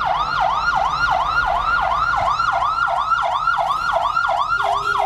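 Police siren on a fast yelp, about three and a half rising-and-falling sweeps a second, heard from inside a car in the police escort.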